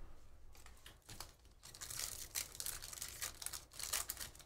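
A trading-card pack wrapper being torn open and crinkled by hand: a run of crackling, rustling tears that starts about half a second in and is fullest in the second half.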